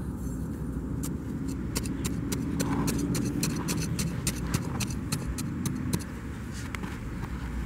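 Crackly crunching of dry grass and soil as a freshly dug hole is pushed closed and trodden down, a run of short crisp clicks, over a steady low rumble in the background.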